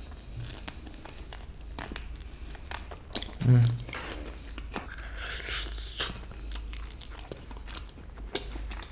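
Close-miked eating of a chicken wing: biting, chewing and lip-smacking, with many small sharp clicks as meat is pulled off the bone. A brief hummed "mm" comes about three and a half seconds in.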